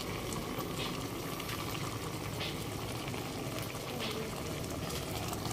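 Galunggong adobo simmering in a pot: the sauce bubbles steadily, with scattered small pops.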